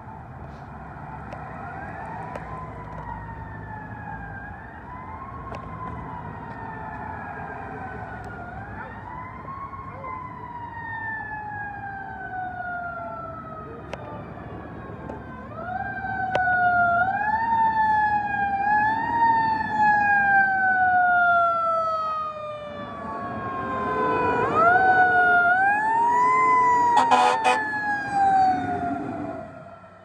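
A fire engine's Federal Signal Q2B mechanical siren, spun up quickly again and again and left to wind down slowly between, growing louder as the truck approaches. Near the end the truck passes close, with air horn blasts and heavy engine sound under the siren.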